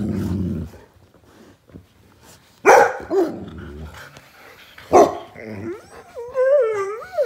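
Golden retrievers vocalizing excitedly: a low grumble at the start, then two sharp barks about two seconds apart, then a wavering, whining howl near the end.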